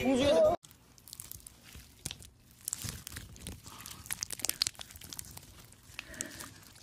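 Singing over music cuts off about half a second in. Then comes quiet, close-up crackling and crinkling, scattered small clicks, from something being handled by hand for its sound.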